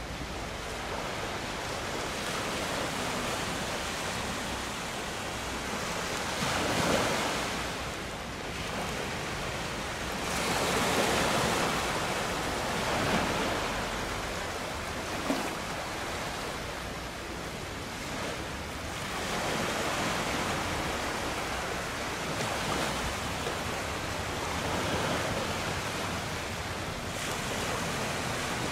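Sea water rushing and washing in surges that swell and fade every few seconds, with wind gusting over the microphone. A single short tick comes about halfway through.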